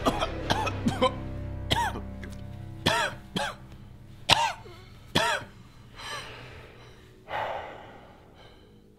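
A man coughing and spluttering, about eight harsh coughs over the first five seconds and then a heavy breath, over low background music.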